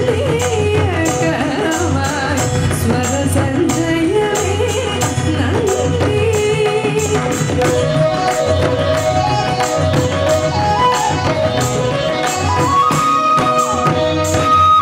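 Live band music: a bamboo flute plays a melody of held notes that climb step by step over a steady beat of tambourine-like hand percussion.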